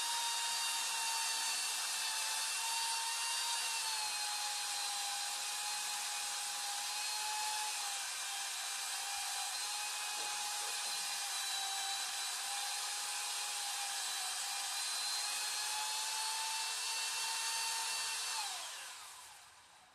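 A power tool's motor running steadily at a high whine for about eighteen seconds, then winding down with a falling pitch near the end.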